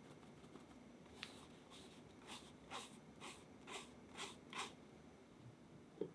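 A kitchen utensil swishing through crepe batter in a mixing bowl: about eight quick strokes, roughly two a second, followed by a soft knock near the end.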